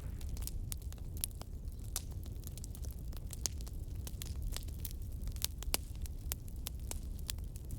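Wood fire in a fireplace crackling: frequent irregular sharp pops and snaps over a steady low rumble of the flames.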